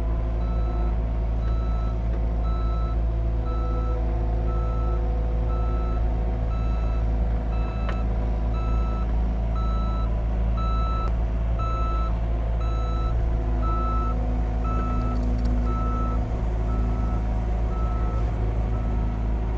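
CAT 259D3 compact track loader's backup alarm beeping steadily about once a second while the machine travels in reverse, over its diesel engine running under load.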